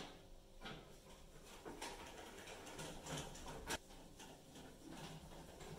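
Screwdriver undoing the screws on a fan oven's sheet-metal back panel: faint scraping and scattered light clicks, with one sharper click about two thirds of the way through.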